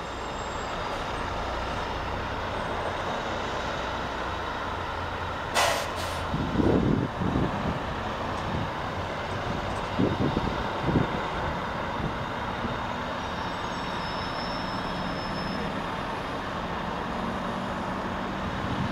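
Distant fire trucks' diesel engines running with a steady low rumble, with two short sharp air-brake hisses about five and a half seconds in. A few dull low thumps follow over the next several seconds.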